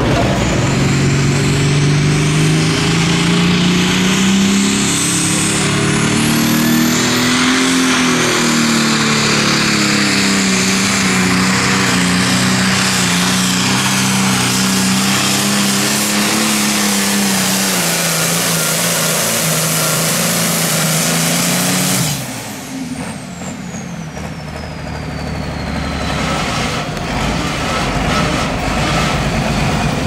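Hot farm pulling tractor's turbocharged diesel engine running wide open under load, its pitch climbing over the first several seconds, then holding steady. About 22 seconds in the throttle cuts abruptly, and a high turbo whine falls away as the engine drops back.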